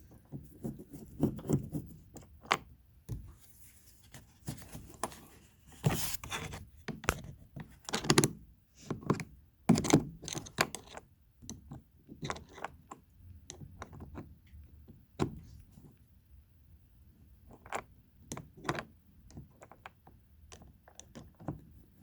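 Irregular clicks, taps and thunks of hand tools and hands working on a minivan's interior door panel while its screws are loosened, with a few heavier knocks about a third and halfway through.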